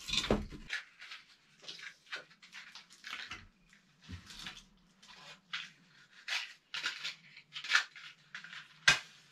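Someone lighting a cast-iron wood stove: a metal clunk at the start as the fire door is handled, then a string of short scraping and rustling sounds, and a sharp knock near the end. A faint steady hum runs underneath.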